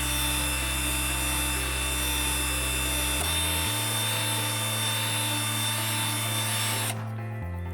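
A power tool runs steadily with a hissing, grinding sound and a whine, cutting through part of the suitcase wheel assembly, and stops abruptly near the end. Background music with sustained bass notes plays underneath.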